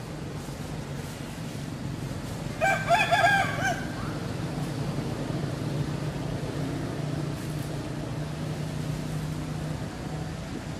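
A single loud animal call, about a second long, with a wavering pitch, about two and a half seconds in, over a steady low hum.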